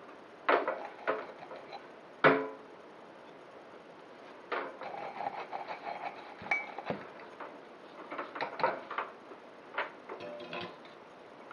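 Workbench handling noise: a series of knocks, clicks and light clattering as the soldering iron is put away and the quadcopter frame is moved about on a work mat. The loudest knock comes about two seconds in, with busier handling in the middle and near the end.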